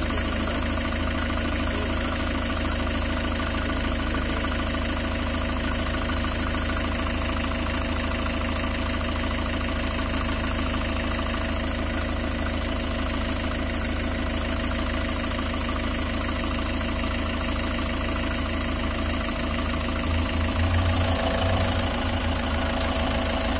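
Toyota Hiace van's engine idling steadily, with a brief louder low hum about twenty seconds in.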